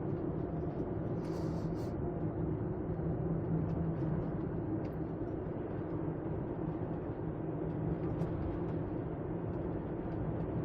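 Steady car interior noise while driving: engine hum and road noise, even and unchanging.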